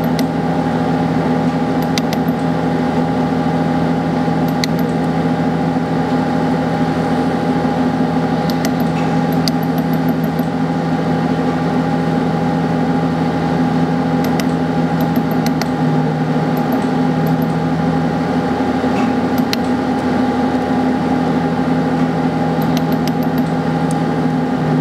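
Sunstone Orion LZR 100 benchtop laser welder humming steadily, with short runs of quick ticks every few seconds as the laser pulses fill and smooth a gold weld.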